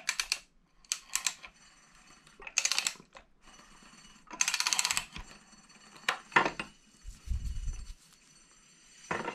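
Bursts of rapid ratchet clicking, five or six short strokes, as the crankshaft of a worn-out VW EA827 1.8 engine is turned over by hand, with a low rumble about seven seconds in.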